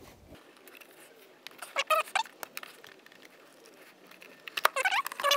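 Plastic airbox squeaking and scraping against its rubber mounts as it is wiggled loose, in short runs about two seconds in and again near the end.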